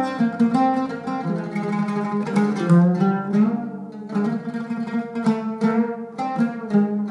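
Solo oud playing a melodic line of plucked notes, some of them ringing on between strokes.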